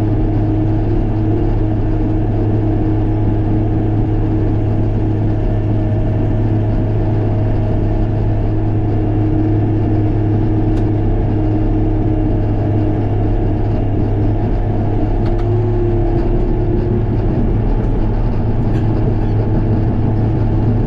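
Heavy-equipment diesel engine running steadily at an even speed, with a constant low hum.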